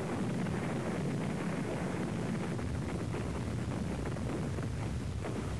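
Battle sound effects: a steady low rumble of distant explosions and artillery fire, with faint crackles and no single loud blast standing out.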